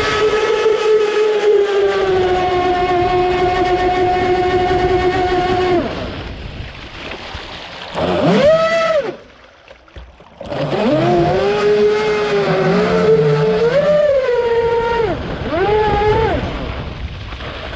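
Motor of a radio-controlled boat whining under throttle. The pitch holds steady for several seconds, then rises and falls as the throttle changes. Near the middle the motor cuts out for about a second and a half, then comes back with more rises and falls in pitch.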